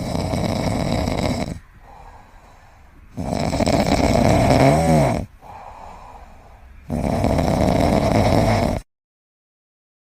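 Snoring: three long, loud snores with quieter breaths between them, the second with a brief wavering pitch. The sound cuts off abruptly near the end.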